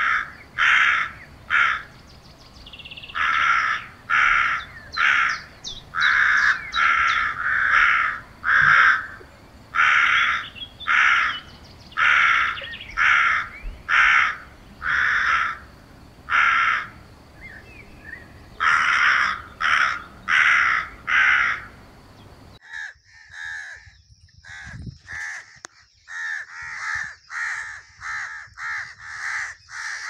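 Crows cawing: a long, loud series of repeated caws in runs, with a short pause a little past halfway. About three-quarters of the way through the sound cuts to a different, cleaner recording of quieter, quicker caws with no background hiss.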